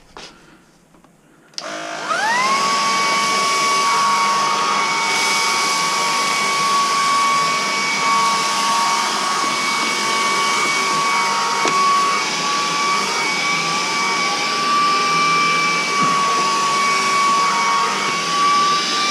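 Vacmaster Orson cordless stick vacuum switched on about a second and a half in: a click, then the motor whines quickly up in pitch and settles into a steady high whine over its airflow noise.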